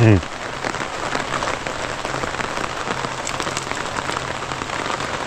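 Steady rain falling, an even hiss with many small drop hits, over a faint steady low hum.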